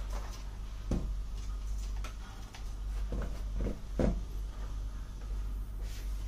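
Handling knocks as an aluminium-alloy intercom door station panel is moved and stood upright on the table: one knock about a second in, then three close together around three to four seconds in, the last the loudest, over a steady low hum.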